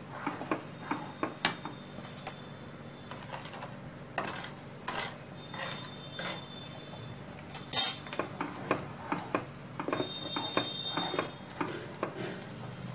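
Wooden spatula stirring and scraping in a nonstick kadai of boiling water and vegetables as semolina is mixed in, with irregular light knocks against the pan. A louder, sharper clatter comes about eight seconds in.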